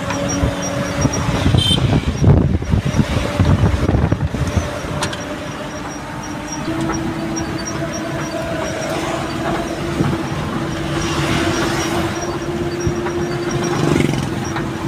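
Eicher truck running downhill on a long slope, heard from inside the cab: a steady engine and drivetrain hum that steps up slightly in pitch about six and a half seconds in, with a louder rumbling stretch between about two and five seconds in.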